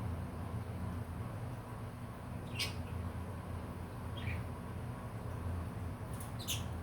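Pet budgerigars giving three short, high chirps spread across a few seconds, over a steady low hum.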